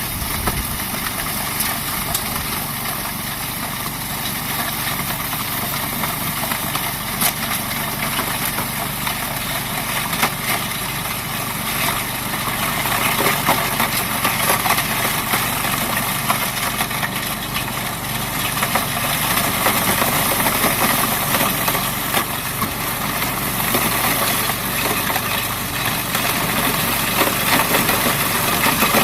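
Toro 828 snowblower engine running steadily, with scattered light clicks and rattles, a little louder from about halfway through.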